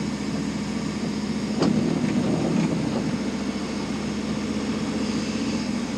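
Paintball tank's engine running steadily with a low hum, heard from inside its plywood turret, with one sharp knock about one and a half seconds in.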